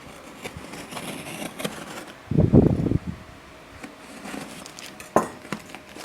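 A shipping package being torn open and handled: rustling and scraping of packaging with scattered clicks, and a louder burst about two and a half seconds in.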